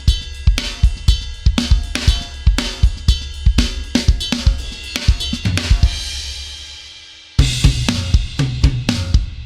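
Sampled metal drum kit from EZdrummer 3's Drums of Destruction EZX playing a groove of kick, snare, hi-hat and cymbals. Past the middle the beat stops on a ringing hit that fades and cuts off suddenly, and a new groove starts about two seconds later.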